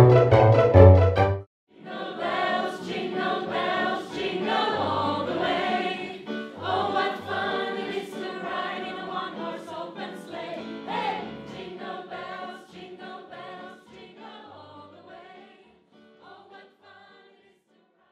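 Loud music with a heavy bass cuts off suddenly about a second and a half in. Then an amateur choir sings a Christmas song with piano accompaniment, growing quieter and fading out near the end.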